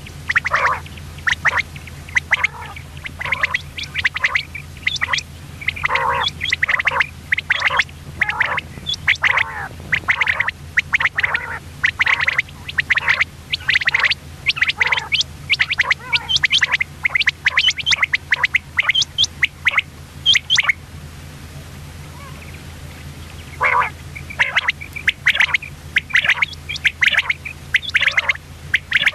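Common quail calling: a rapid string of short, sharp calls, with a break of a few seconds about two-thirds of the way through before the calls resume. A low steady hum runs underneath.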